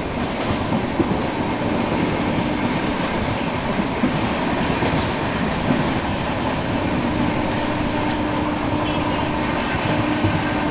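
Jaipur–Gomtinagar Express running along the track: a steady noise of wheels and coaches on the rails, with a faint steady whine joining in past the middle.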